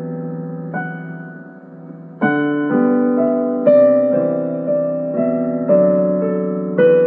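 Slow, gentle piano music: a held chord dies away, a soft note sounds, then from about two seconds in new chords are struck about twice a second, each left to ring.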